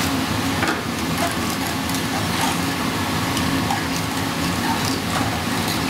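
Steady mechanical hum of the kitchen, with light scattered clicks and scrapes from a metal utensil stirring and tossing spaghetti in a frying pan over a gas burner.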